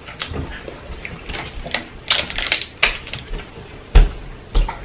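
Plastic water bottle picked up and its screw cap twisted off: a quick run of crackling plastic clicks. Near the end come two low thumps as water is gulped from the bottle.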